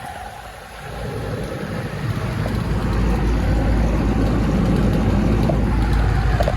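Outdoor air-conditioning condensing unit running: a steady low hum of compressor and fan that grows louder over the first few seconds, then holds.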